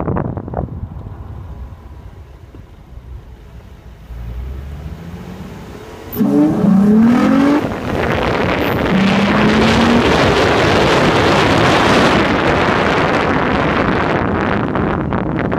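An engine revs up about six seconds in, its pitch rising twice, followed by a loud steady rushing noise.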